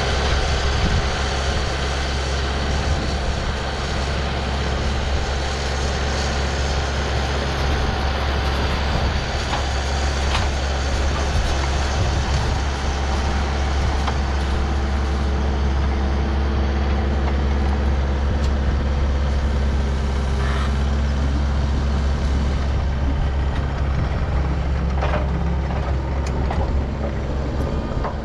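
Engine of the machine carrying a truss boom, running steadily with a low hum as it works to pick up a heavy load. A few light knocks are heard along the way.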